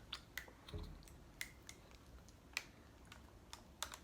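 Faint, scattered small clicks and taps, about ten in four seconds, the sharpest about two and a half seconds in and just before the end.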